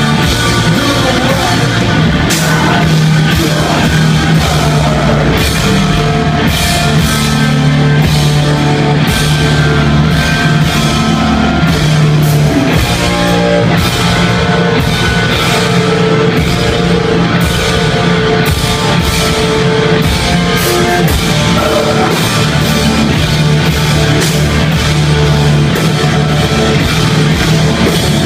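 Live heavy rock band playing loud: distorted electric guitars over a driving drum kit with crashing cymbals, without a break.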